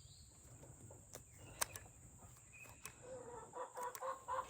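Poultry calling softly: a run of short, evenly pitched notes repeating several times a second in the last second and a half. A single sharp click sounds about one and a half seconds in.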